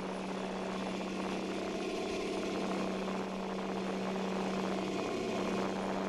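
Crab-fishing boat running at speed: a steady engine drone over a continuous rushing noise.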